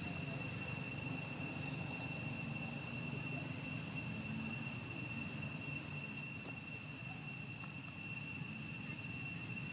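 Outdoor ambience: a steady high-pitched insect drone over a low, even rumble.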